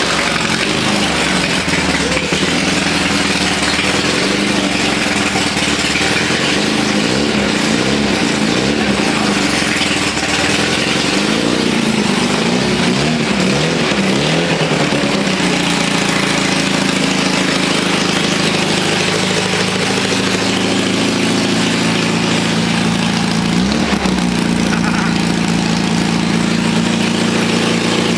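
Class 11 VW Beetle race car's air-cooled flat-four engine running, revved up and down several times in the first half, then running steadier with one more brief rev about three-quarters of the way through.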